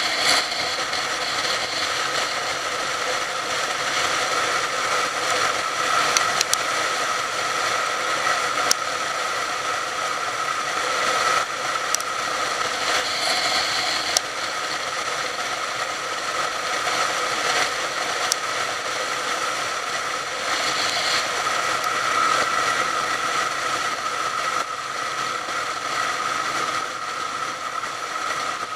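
Motorcycle running steadily along a road, its engine drone mixed with a rattling, clicking mechanical noise and a few sharp clicks.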